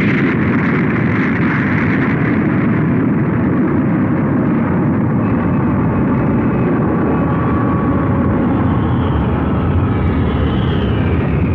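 Sound effect of a cartoon spaceship's thrusters firing: a steady engine noise, mostly low, that starts suddenly just as the thrusters ignite. A faint high tone glides down near the end.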